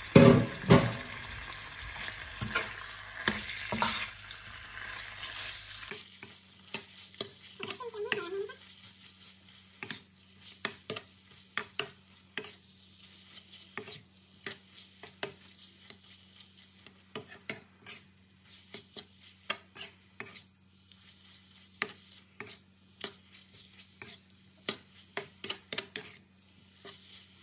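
Cubes of beef frying in massaman curry paste and oil, sizzling, while a metal slotted spatula stirs them, scraping and clicking against the pan. The sizzle is loudest for the first six seconds. After that it drops to a faint hiss under repeated sharp spatula clicks and scrapes.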